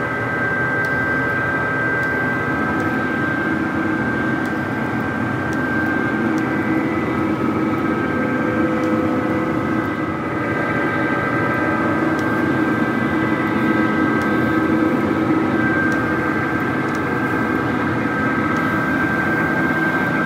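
Powder-coating spray gun and its air supply running steadily: a continuous rush of air with a steady hum underneath.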